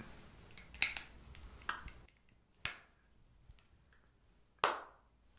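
A few sharp, separate clicks or snaps with quiet between them, about one a second, the loudest and longest near the end.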